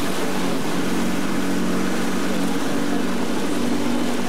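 Motorboat engine running steadily, heard from on board, with a steady low hum over a constant rushing hiss.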